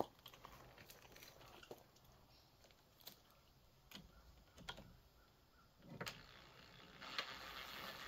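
Faint scattered clicks and taps of a screwdriver and metal lockset hardware as screws are started by hand into a door lock; a faint steady hiss comes in about seven seconds in.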